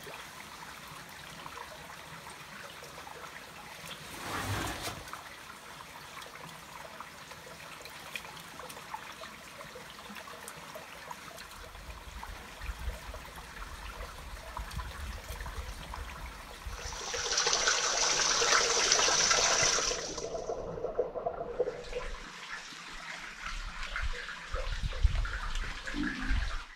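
Water trickling steadily into a granite rock pool, with a louder rushing stretch about two-thirds of the way through. A few low thumps come near the end.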